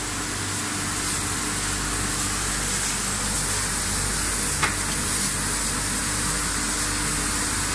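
Crate and tray washing machine running: a steady hiss of water spraying inside the washing tunnel over a low, steady motor hum, with one short knock a little past halfway.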